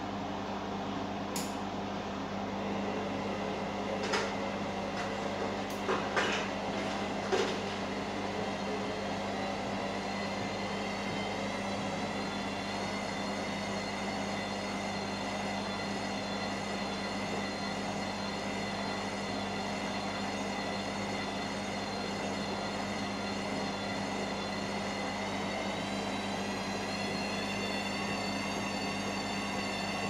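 Candy washing machine drum spinning up into a 1400 rpm spin cycle: a steady motor hum with a whine that builds over the first ten seconds. A few sharp knocks come in the first eight seconds.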